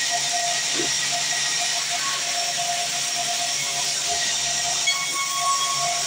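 Large band saw resaw running and ripping wooden boards: a steady hiss of the blade cutting through the wood, with steady whining tones over it.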